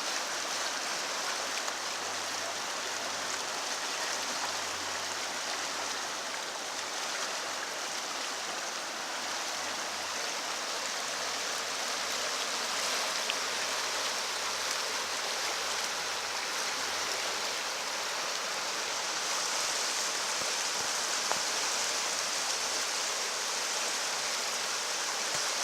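Elbow River water rushing steadily.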